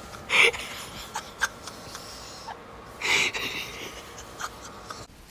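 A person's breath, two short loud huffs about three seconds apart, with light clicks and rustling between.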